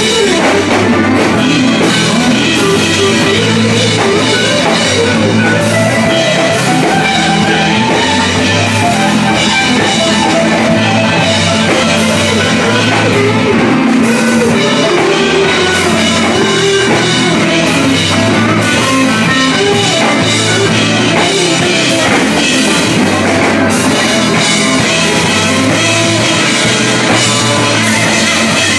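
Live band playing a loud instrumental break: strummed guitars and banjo over a drum kit keeping a steady beat, with no singing.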